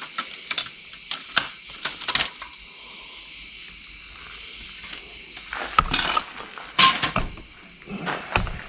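Engine gasket being pried and peeled off a Mini Cooper S engine block: scattered light clicks and scrapes of metal parts, then a few louder scrapes and knocks in the last few seconds.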